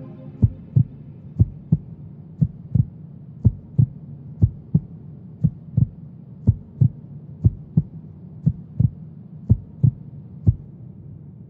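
Heartbeat sound effect in a film soundtrack: paired low thumps, lub-dub, about once a second over a low steady hum, stopping near the end. The last of a held music chord fades out at the start.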